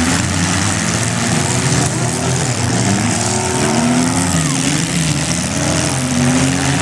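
Several compact demolition-derby cars' engines running and revving at once, their pitches rising and falling against each other.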